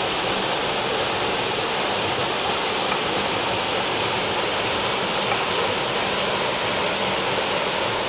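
Waterfall pouring into a rock pool: a steady, even rushing of falling water.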